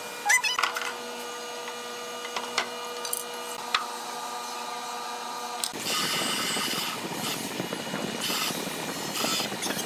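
Electric hand drill boring into a hardwood board, starting about six seconds in and running steadily with a few swells as the bit bites. Before it, a few light taps of wood being handled over a steady hum.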